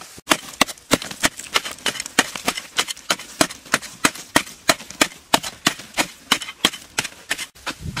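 A digging tool chopping into dry, hard earth, a rapid regular run of sharp strikes, about three a second, as a pit is dug by hand.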